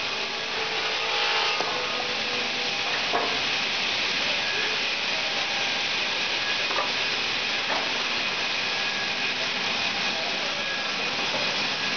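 Three-head horizontal lath slicing saw running and cutting a timber board fed under a spiked feed roller: a steady sawing hiss, with a few faint knocks.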